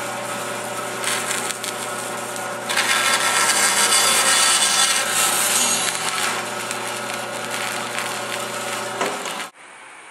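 Band saw running, its blade slicing through a wooden block pushed on a crosscut sled, over a steady motor hum. The cutting is loudest from about three to six seconds in, and the sound cuts off suddenly near the end.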